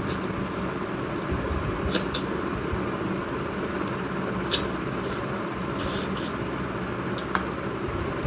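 A person eating rice by hand and chewing with the mouth full: a few short, soft clicks of lips and mouth, spread out over a few seconds, over a steady background noise.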